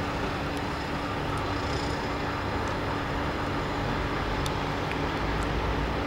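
Vac-Con vacuum truck running steadily, its engine and vacuum system giving an even hum with a constant tone over a low rumble.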